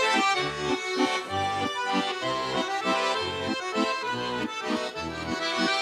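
Russian garmon (button accordion) playing the instrumental introduction to a folk song: sustained reedy chords over an even bass-and-chord accompaniment at about two beats a second.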